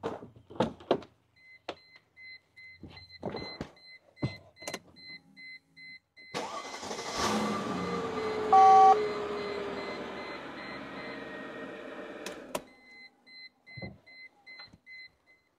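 Mercedes-Benz E430's V8 started briefly. Clicks and handling noises lead up to it; the engine catches about six seconds in, and its fast idle falls as it settles. It is switched off sharply about six seconds later. A short two-tone electronic beep, the loudest sound, comes a couple of seconds after the start. The short run fills the new oil filter with oil after an oil change.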